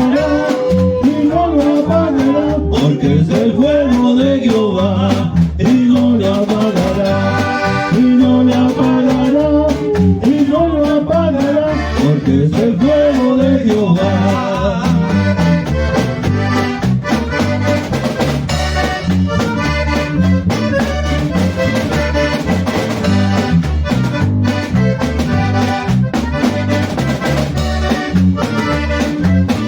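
Norteño band playing an instrumental break: an accordion carries the melody over a steady, evenly pulsing bass and guitar rhythm.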